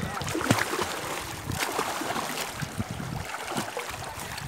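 Water splashing and sloshing in irregular bursts as a swimmer kicks and paddles right beside the microphone in shallow sea water.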